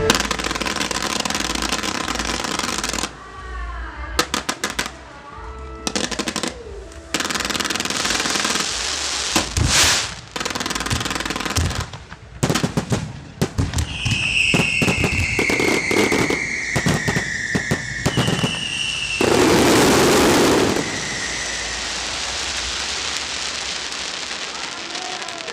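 Aerial fireworks crackling and banging in rapid strings with short gaps. In the middle come whistling tones that fall in pitch, and about 19 seconds in a loud dense burst lasts for over a second.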